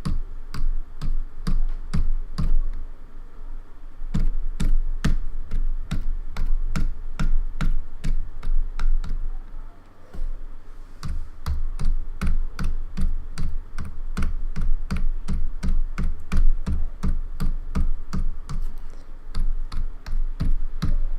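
Fast typing on a freshly repaired Logitech K360 membrane keyboard, keystrokes clacking several times a second with a brief pause about ten seconds in, over a steady low hum.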